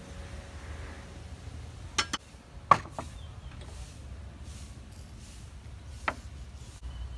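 A few sharp knocks and clinks of kitchen utensils against ceramic bowls and a wooden board: a cluster about two to three seconds in, the loudest among them, and a single clink about six seconds in as a spoon adds seasoning to a bowl.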